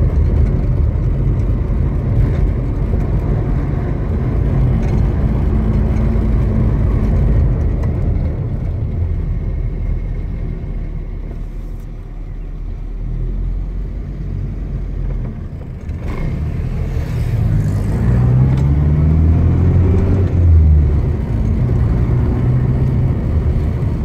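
A car's engine and tyre noise heard from inside the car as it drives slowly through town. The engine eases off around halfway, then pulls again with its note rising and falling through the last third.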